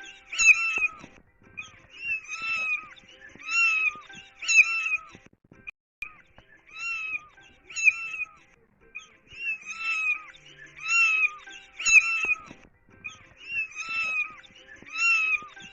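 A cat meowing: short, high-pitched mews in runs of three or four, repeating over and over like a looped sound effect.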